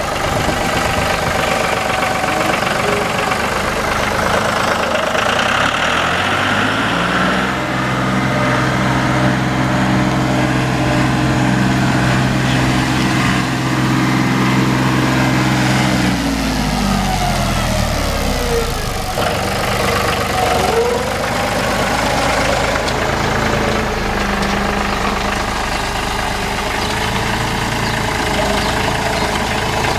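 Tractor engine running, revved up about seven seconds in, held for several seconds, then dropped back to a lower speed.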